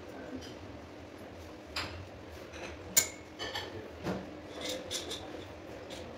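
Scattered metallic clinks and taps from hands and tools working on a stainless-steel sofa base frame, the sharpest about three seconds in.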